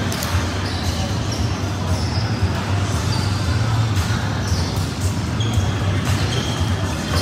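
Indoor volleyball play on a hard gym court: sneakers squeaking in short high chirps, and the knocks of the ball being hit and bouncing, over a steady low hum.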